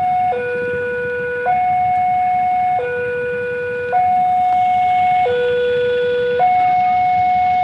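Railway level-crossing warning alarm sounding a loud two-tone signal, switching back and forth between a higher and a lower tone about every 1.2 seconds, as it does while the barrier is down for an approaching train.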